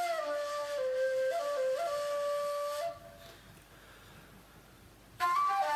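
Egyptian ney flute playing a slow melody, single held notes moving in small steps. It stops about three seconds in and comes back two seconds later on a higher note that then falls.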